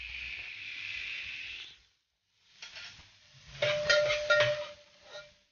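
Egg-filled capsicum rings sizzling in a frying pan with a steady hiss. After a short break, a utensil clinks and knocks against the pan several times, with a ringing tone under the strikes.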